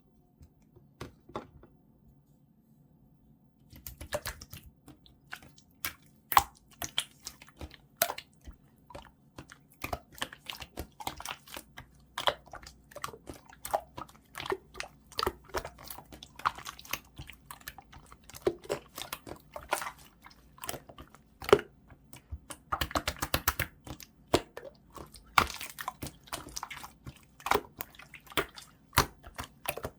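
Blue clear slime being squished and pressed by hand, making many quick, irregular wet clicks and pops as air pockets burst. After a couple of clicks near the start, it gets going about four seconds in.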